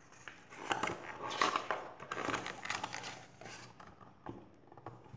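Paper rustling and crinkling as a picture book's page is handled and turned over, a run of rustles and small flaps that fades out after about three and a half seconds.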